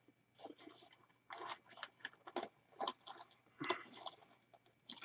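Faint, irregular rustling and crinkling of artificial flocked evergreen branches and plastic wreath decorations being handled and pushed into the wreath base. The sharpest crackle comes a little before four seconds in.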